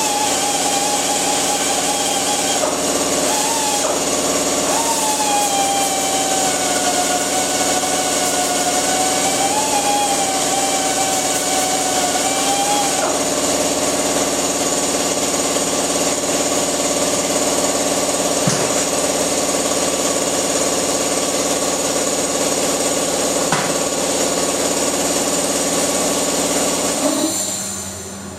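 Electric grinder running continuously, its pitch wavering slightly as it is pressed to the work, then winding down near the end.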